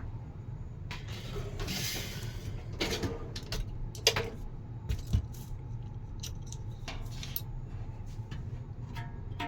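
Scattered metallic clicks, clinks and scrapes as a box fan's blade set is worked loose and pulled off the motor shaft, with a steady low hum underneath. The blade was fastened on tight.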